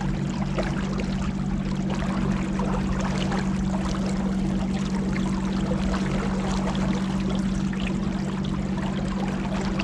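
Motorboat engine running steadily at cruising speed, a constant low drone, with water rushing and splashing along the hull.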